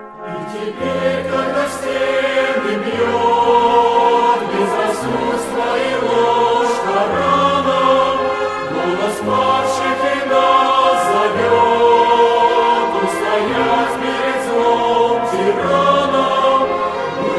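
A choir singing a slow hymn in held chords over a low bass line that changes every second or two.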